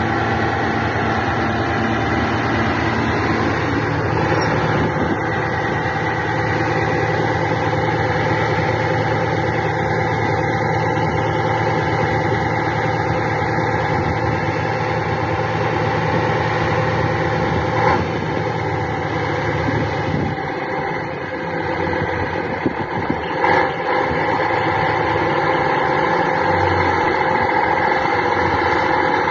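Diesel engine of a Scania B111 articulated bus running steadily at idle, with a brief dip in the low rumble about twenty seconds in.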